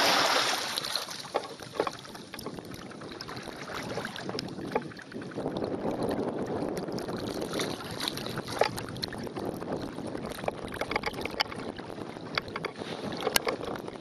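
Water sloshing and splashing around an elephant wading through swampy water, with scattered knocks and wind buffeting the microphone.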